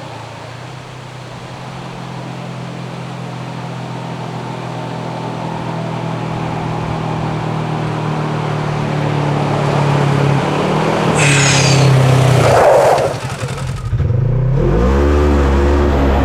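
Polaris RZR XP 1000's twin-cylinder engine running steadily and growing louder for about twelve seconds as the side-by-side comes closer. A short burst of rushing noise follows, then a brief drop, and the engine revs up and down near the end.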